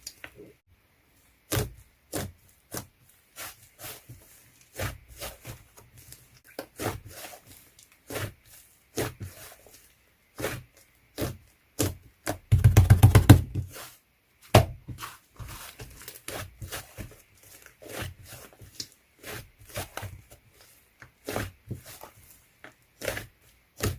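Slime being squished, poked and pulled by hand: irregular sharp, sticky clicks and pops. About halfway through comes a quick run of many pops in a row, the loudest part.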